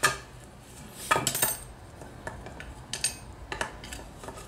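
Light metallic clicks and clinks of coloured craft wire being bent and wound by hand around a wooden spatula, the wire ends knocking against the wood and each other. A sharp click at the start, a quick cluster with a brief high ring about a second in, and a few single taps near the end.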